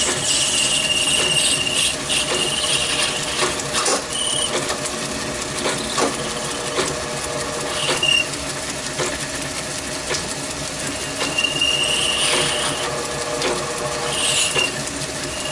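Small hobby lathe running with a steady motor and gear whine and light clatter, the cutting tool working a brass rod and giving short high squeals now and then.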